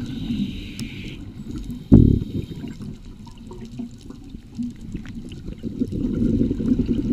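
Scuba breathing heard underwater through a camera housing: a regulator hiss on an inhale near the start, then the low bubbling rumble of exhaled bubbles building again near the end. A single sharp knock about two seconds in is the loudest moment.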